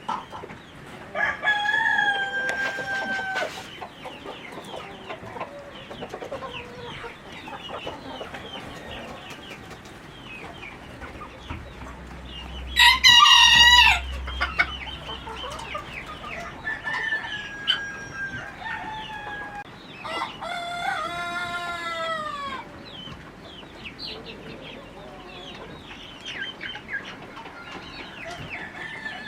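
Roosters crowing four times, the loudest crow about halfway through, over constant clucking and short calls from a flock of chickens.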